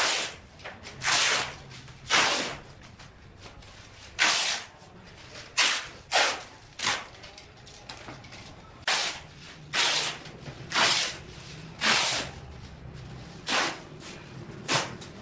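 Clear packing tape being pulled off the roll in short rips, about a dozen at an uneven pace, while the seams of foam flooring underlay are taped down.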